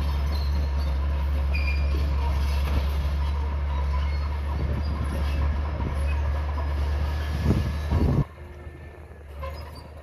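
Komatsu D31P crawler bulldozer's diesel engine running with a loud steady drone, with squeaks and clanks from its steel tracks as it pushes dirt. The engine sound drops away suddenly a little after eight seconds in.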